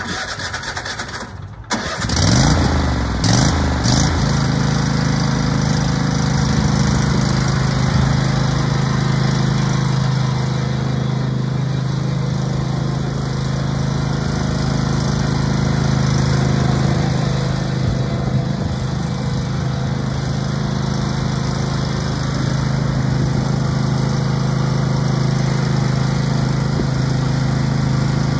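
Cub Cadet LX42 XT2 riding lawn mower's 20 hp Kohler engine, its speed rising about two seconds in and then running steadily as the mower is driven.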